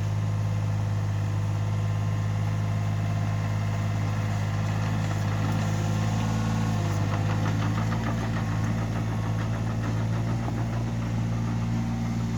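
Yanmar B27 backhoe's diesel engine running steadily, with a light rapid clatter. Its note dips a little about halfway through and picks up again near the end.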